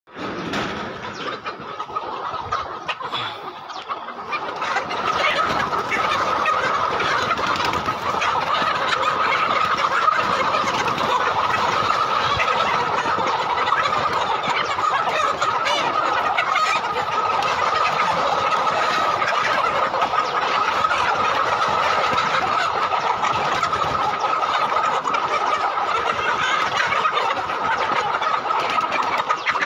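A large flock of Ho chicken hens (Dong Tao crossbreeds) clucking and calling together in a dense, continuous din, which grows louder about five seconds in.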